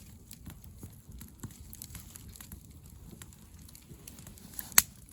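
Campfire of dry firewood crackling, with scattered small snaps and one loud sharp pop near the end.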